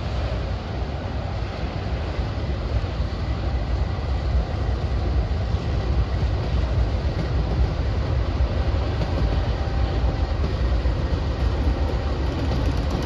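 Norfolk Southern freight train of empty autorack cars rolling past, a steady low rumble of wheels on the rails.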